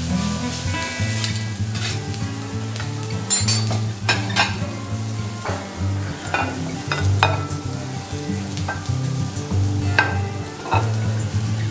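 Onions and green peppers sizzling on a steel teppanyaki griddle, with a metal spatula and fork scraping and clacking against the steel several times. Background music with a low bass line runs underneath.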